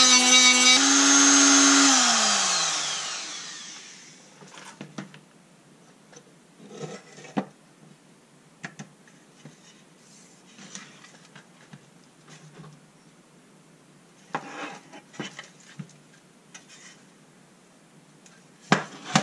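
Handheld rotary tool with a small wire wheel whining at high speed against the rusty tin box to strip paint and rust, then switched off and spinning down with a falling pitch about two to three seconds in. After that, light clicks and rubs of the thin tin box being handled and its lid opened, with a sharp metallic clack near the end.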